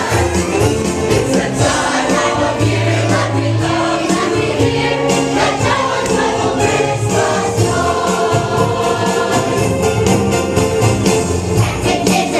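Choir singing a Christmas cantata over instrumental accompaniment, with a strong bass line and light percussion strokes throughout.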